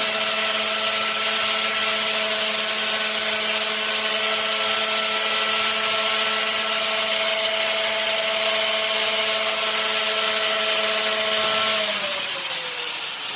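Small corded electric saw running at a steady pitch with a whine over a hissing whir. About twelve seconds in the pitch falls as the motor winds down.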